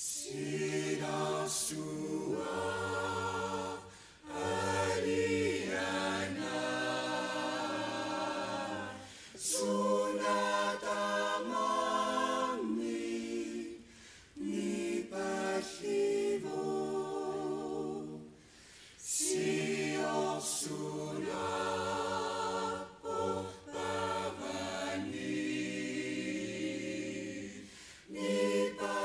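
A choir singing a cappella in Greenlandic, with low and high voices together. The song moves in phrases with short breaks between them.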